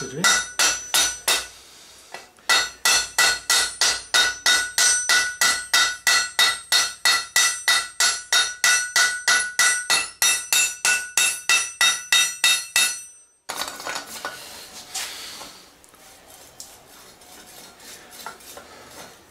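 Hammer blows on the red-hot pivot rivet of a pair of flat-bar blacksmith tongs resting on a railroad-rail anvil, peening the joint: a few ringing blows, a short pause, then a steady run of about three to four ringing blows a second for some ten seconds that stops suddenly. Only faint handling noise follows.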